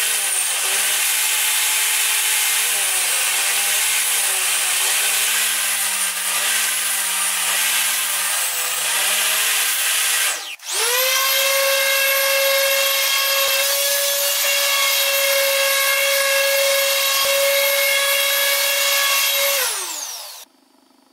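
Table saw cutting pine boards on a crosscut sled, its motor whine wavering up and down in pitch. About halfway there is a brief break, then the saw runs at a steady whine. Near the end it is switched off and spins down, falling in pitch.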